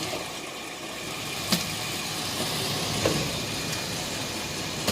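Toyota Land Cruiser Prado 120's 4.0-litre engine running steadily, with two sharp knocks about a second and a half apart. The knock is of the kind the owner traces to a stretched transfer-case chain.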